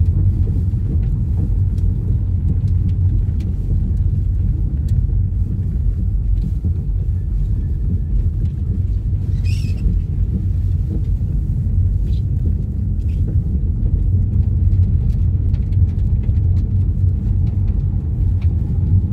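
Steady low road noise of a car driving on a gravel mountain road, heard from inside the cabin, with a few faint ticks and a brief higher-pitched sound about halfway through.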